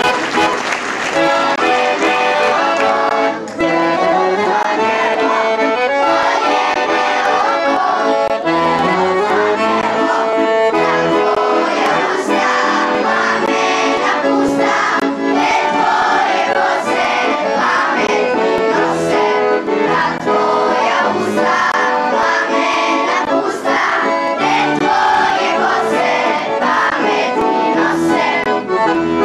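Accordion playing lively traditional folk music, loud and without a break.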